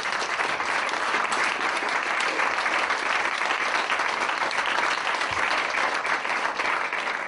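Audience applauding, a dense and steady clapping.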